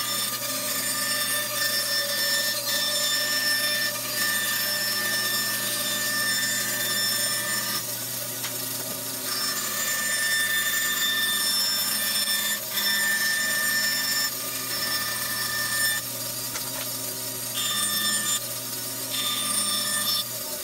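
Bandsaw running steadily, its motor humming and whining while the blade cuts a thin 1/8-inch board template. The upper tones shift a little as the piece is fed around the curve.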